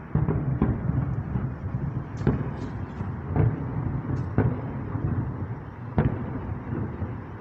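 Distant aerial fireworks going off: about seven booms and cracks at uneven intervals, one or two seconds apart at most, over a steady low rumble.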